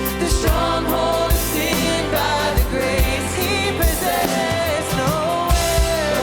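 Contemporary worship song performed live by a band: a sung melody over a steady drum beat and sustained bass.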